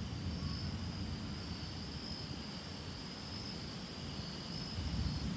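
A steady, high evening chorus of insects such as crickets, under a low rumble of wind buffeting the microphone. The wind strengthens near the end as the pre-storm breeze picks up.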